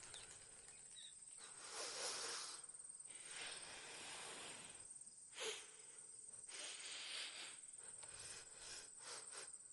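Hushed, faint ambience: soft swells of noise come and go under a thin, steady high whine, with one brief louder sound about five and a half seconds in.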